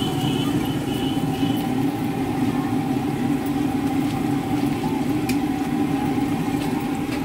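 Steady mechanical drone like an idling engine, with a faint steady tone above it and a faint high whine in the first two seconds.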